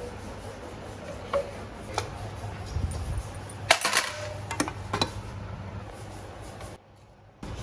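Small steel bolts and engine parts clinking into an aluminium basin: a few sharp metallic clinks, with a quick cluster of them about four seconds in, over a steady low hum.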